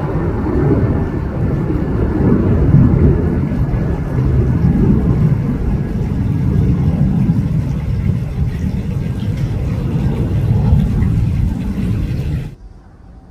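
Twin-engine jet airliner passing overhead: a loud, low, wavering engine rumble that cuts off suddenly near the end.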